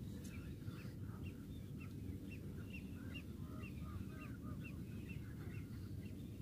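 A series of short, high chirping calls from an animal, roughly two a second, over a steady low rumble.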